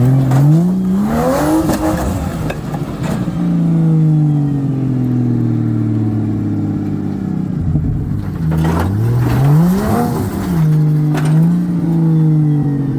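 4WD engine, a Barra-swapped Nissan Patrol GU, idling under load and revving twice, its pitch climbing each time, once right at the start and again about nine seconds in. It is crawling over rock, with a few sharp knocks in between.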